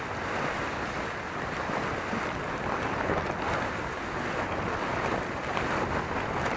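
Plastic tarp being dragged and handled over leaf litter: a continuous rustling, scraping noise that holds at a steady level.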